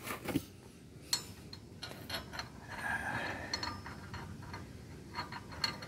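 Scattered light clicks and taps of metal parts being worked by hand as a pulley is tapped into place on a riding lawn mower, with a brief scrape about three seconds in.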